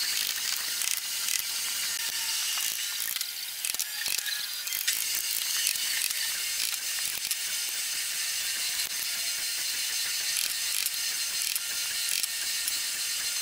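Steel hand chisel paring and levering wood out of a small mortise in walnut: a dense, steady crackling and clicking of wood fibres being cut, with a few sharper clicks.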